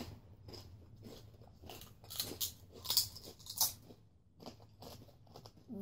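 Dirty Potato Chips, hard potato chips, being bitten and chewed: a few separate, really crunchy crackles, the loudest about two to four seconds in.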